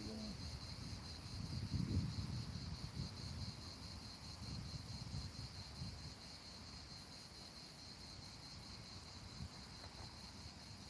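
Insects chirring in a steady high-pitched drone, over a low uneven rumble that is loudest about two seconds in.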